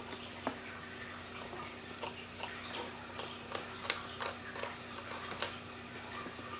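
Cat chewing a piece of turkey jerky treat in a cardboard box: scattered small clicks and crunches, more frequent after about two seconds.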